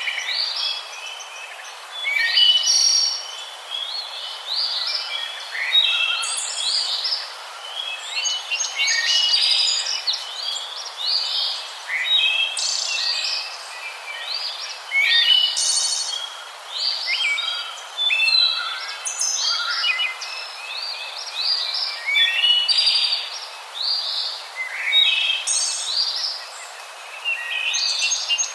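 Many small birds chirping and calling, short overlapping high chirps with no break.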